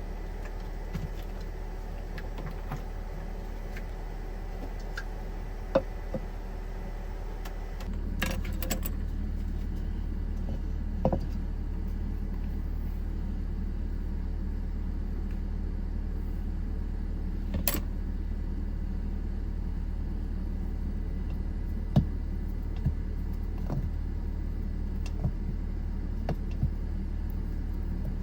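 A steady low machine hum that steps up a little louder about eight seconds in, with scattered small clicks and knocks over it.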